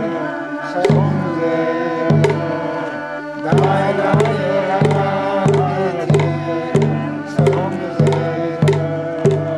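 Group singing over a deep hand-drum beat with sharp clacks, as accompaniment for a traditional circle dance. The drum strikes sparsely at first, then settles into a steady beat of about one and a half strokes a second a little over three seconds in.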